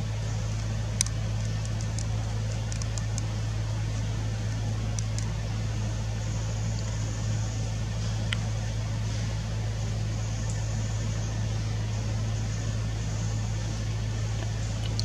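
A steady low mechanical hum, unchanging throughout, with a few faint sharp clicks and a thin high hiss that comes and goes.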